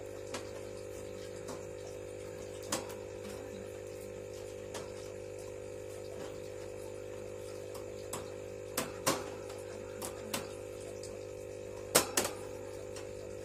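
Scattered light clicks and knocks from a green wire hamster cage being handled, the loudest two close together near the end, over a steady background hum.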